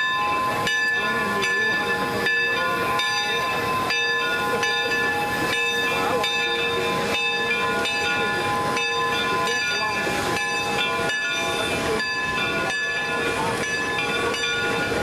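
Geared steam locomotives running, with a regular beat, steam hissing and several steady high tones held through the stretch.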